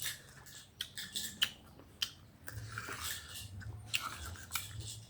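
Crunchy chewing and biting into raw green mango, a scattered run of sharp crisp crunches and clicks.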